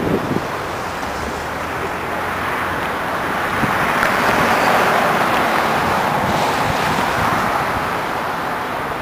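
A vehicle passing on the road bridge, its tyre noise swelling about four seconds in and fading again, over the steady rush of river water spilling over a low dam.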